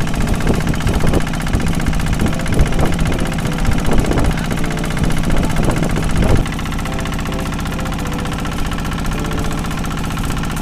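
An engine running, with irregular knocks or thumps over the first six or so seconds, then running steadier for the rest.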